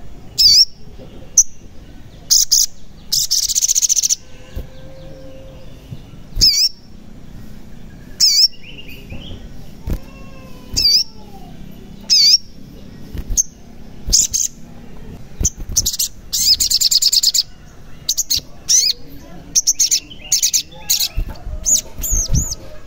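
Male olive-backed sunbird (sogon) singing: a string of short, sharp, high chirps about every second or two, broken by two rapid trills, a short one near the start and a longer one in the middle.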